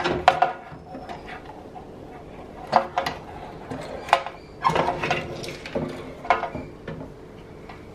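A run of irregular clicks, knocks and clatters as a desktop PC motherboard is worked loose and lifted out of its sheet-metal case, the board and its ports bumping against the chassis; a few of the knocks ring briefly.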